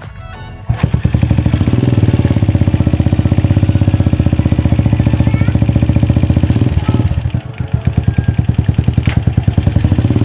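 Vehicle engine running close by, a steady rapid pulsing that starts abruptly about a second in, dips briefly around seven seconds in and then picks up again.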